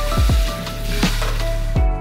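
Background music with a deep kick-drum beat over the steady hiss of a kitchen faucet running into a sink. The hiss stops near the end.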